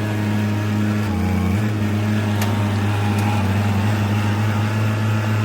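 Diesel engine of a heavy land-clearing machine running steadily; its speed dips briefly about a second in, then picks back up, with a couple of faint clicks over it.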